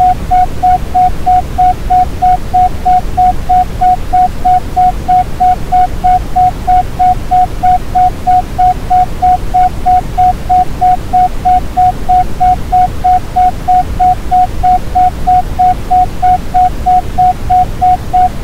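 Synthesized isochronic tone: a single steady beep pulsing on and off evenly about three times a second (pi, 3.14 pulses a second), over a continuous deep rushing Brownian noise.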